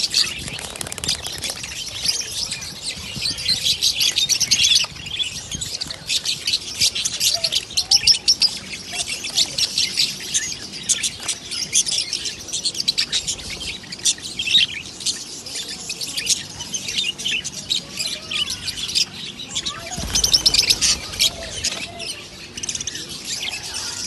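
A crowded cage of budgerigars chirping and chattering, many birds at once in a dense, continuous twitter.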